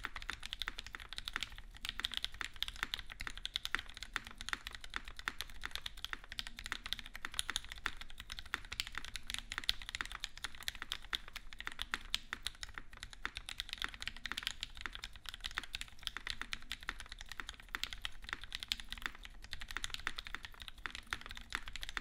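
Fast, continuous typing on a custom mechanical keyboard with lubed Gateron Black Ink linear switches in an aluminum case with an aluminum full plate and GMK keycaps: a dense, unbroken stream of keystroke clacks.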